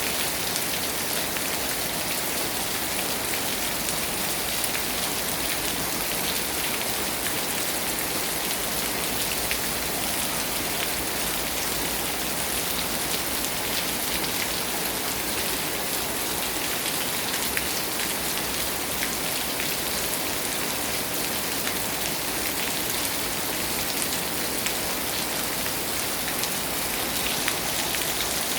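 Heavy rain falling steadily on a pavilion and its pavement, a dense even hiss with many fine drop ticks.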